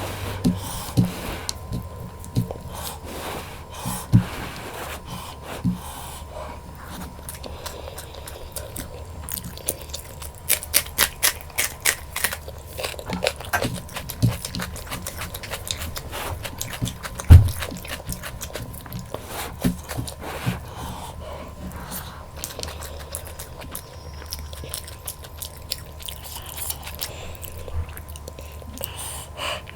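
Close-up eating sounds of mutton curry, rice and raw vegetables: scraping, biting and chewing, with a dense run of quick crackling clicks about ten to fourteen seconds in and one loud knock about seventeen seconds in.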